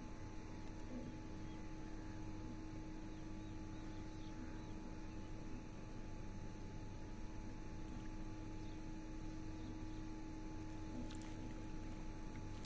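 Faint steady hum: a low drone with a couple of higher steady tones over a light hiss, unchanging throughout.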